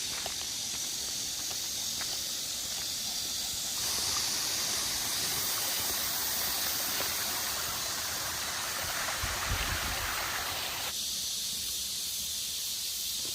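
Steady high hiss of outdoor mountain ambience, which shifts abruptly about four and eleven seconds in, with a few low thumps near ten seconds.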